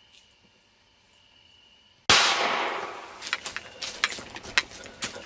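A single gunshot about two seconds in, a sharp crack that dies away over about a second, followed by scattered sharp clicks and crackles.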